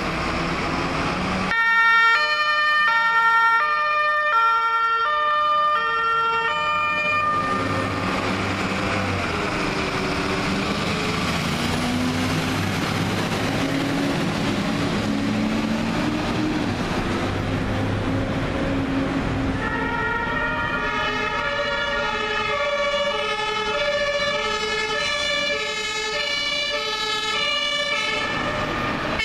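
German fire engine two-tone siren (Martinshorn) alternating between its two notes, then a fire truck's diesel engine pulling away close by, rising and falling in pitch. About twenty seconds in, a second two-tone siren starts up from another fire engine.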